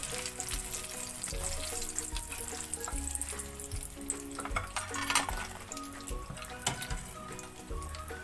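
Chicken pieces deep-frying in hot oil: a steady sizzle with scattered crackles.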